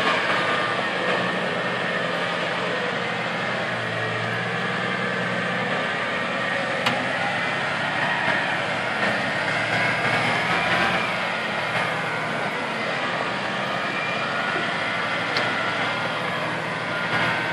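Engine of a lifted Jeep Cherokee XJ running steadily at low revs as the truck crawls slowly over a rocky trail.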